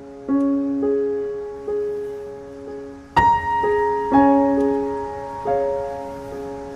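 Background music of slow, soft piano notes, struck one or two at a time and left to ring and fade, with a louder, higher note about three seconds in.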